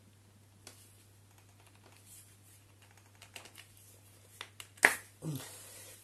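Light clicks and taps of a plastic multi-pin cable connector being worked loose, then one sharp click a little under five seconds in as the electric scooter's 8-pin motor connector comes apart.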